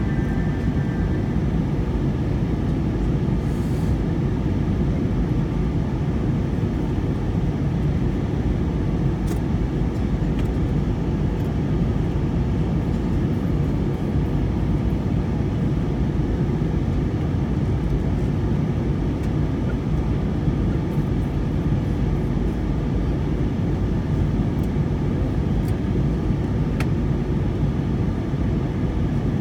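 Steady cabin noise of a jet airliner in cruise: an even, unbroken rushing drone from the engines and the airflow over the fuselage.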